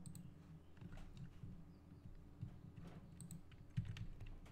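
Faint clicking of a computer keyboard: a few scattered key presses with gaps between them.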